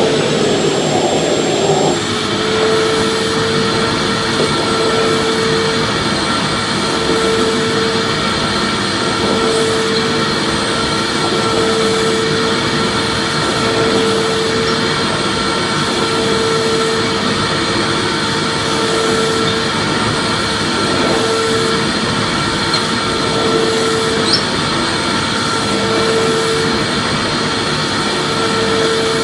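Vacuum cleaner running steadily: a continuous motor whine and rush of air, with a hum that swells and fades about every second and a half.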